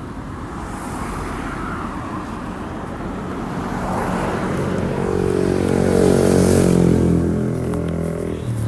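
Royal Enfield Continental GT650's 648 cc parallel-twin running through an aftermarket Powerage short cone exhaust while riding. The exhaust note builds from about halfway through, rising in pitch and loudness, then eases off lower near the end.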